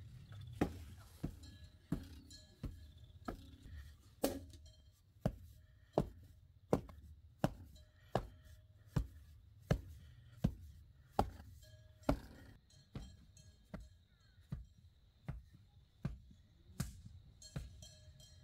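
Steady chopping blows on a hard surface, about four every three seconds, growing lighter after about twelve seconds.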